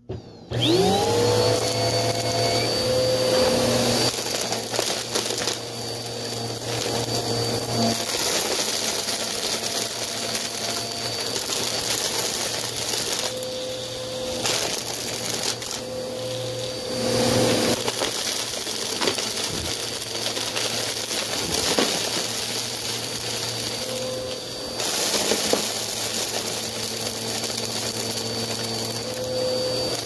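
Vacuum cleaner switched on, its motor whining up to speed within the first second, then running steadily while it sucks up dirt, with a dense crunchy crackle of grit being pulled in.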